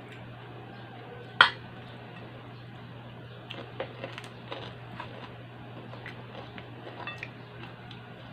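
A spoon clinking sharply against a plate once, about a second and a half in, then a run of softer clicks and taps of eating at the plate, over a steady low hum.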